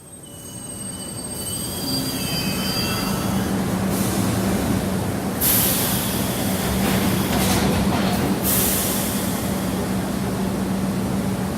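Subway train recording: the train's rumble builds over the first two seconds with high wavering wheel squeals, then runs on loud and steady with a low hum.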